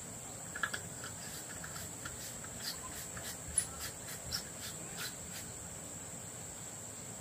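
Steady high-pitched drone of insects, with a scattering of light, irregular clicks and taps through the first five seconds or so.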